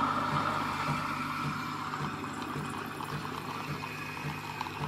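Nespresso Creatista Pro coffee machine making a cappuccino. The steam wand hisses in the stainless milk jug, easing over the first couple of seconds into a softer crackly bubbling, while the machine pulses low about twice a second as espresso runs.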